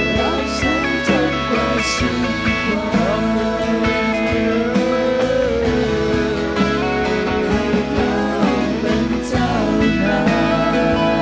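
Live worship band playing a slow song, with acoustic guitar, keyboard and drums under a sung melody.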